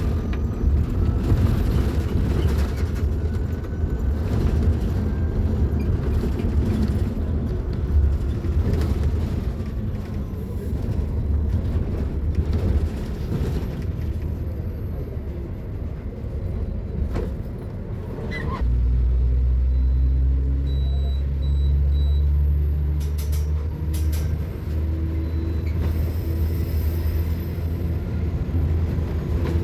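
Mercedes-Benz eO500U electric city bus running, with a rough rumble for about the first two-thirds. It then changes abruptly to a steady low hum, with a few clicks and a short run of three high beeps.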